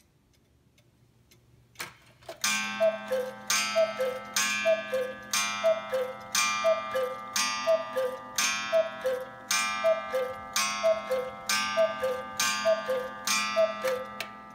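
August Schwer 8-day chalet cuckoo clock striking the hour. A click as the strike releases, then about a dozen two-note cuckoo calls, high then low, each with a ringing gong strike, about once a second.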